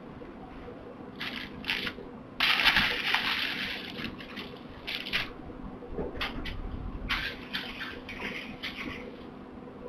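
Kittens at play: irregular bursts of rustling and crinkling, the longest and loudest lasting about a second and a half, over a low steady hum.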